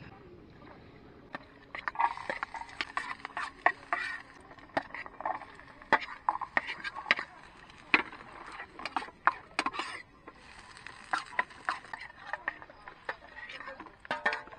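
Metal spoon scraping and clinking against a steel plate and a camp frying pan as chopped onion, garlic and chili are tipped into the pan, in many quick irregular clinks.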